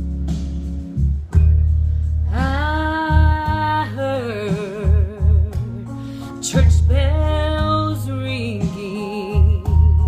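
A woman singing a wordless soul ballad intro over a heavy, bass-rich backing track. Twice, about two seconds in and again past the halfway mark, she swoops up into a long held note with wide vibrato.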